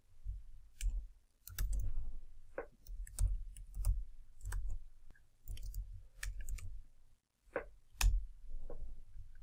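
Typing on a computer keyboard: irregular key clicks, each with a dull low knock, with a short pause near the end.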